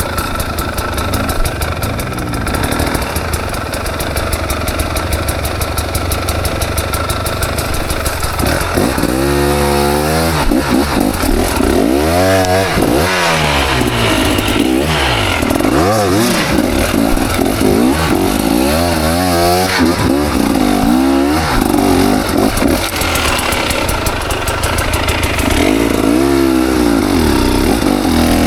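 KTM 300 XC single-cylinder two-stroke dirt bike engine running hard on the throttle. For the first several seconds it holds fairly steady, then it revs up and down over and over, a rise and fall every second or two.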